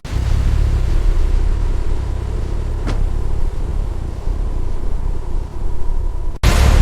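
A car engine running with a steady low rumble, one short click about three seconds in. Just before the end the sound cuts abruptly to a louder, fuller rumble.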